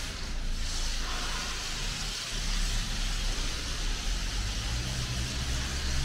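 Pressure washer running: a steady hiss of spray over a low motor hum.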